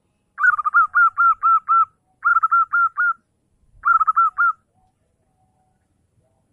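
Zebra dove (perkutut) singing: three phrases of quick, repeated, evenly spaced cooing notes, each phrase lasting about a second, with short pauses between them.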